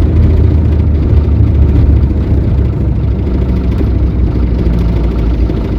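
Volkswagen Kombi driving at road speed, with a steady low drone over the engine and road noise: the strange noise that started after the van hit a pothole.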